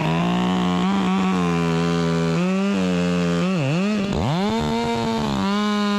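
Chainsaw running at high revs, its pitch dropping sharply and climbing back twice a little past the middle.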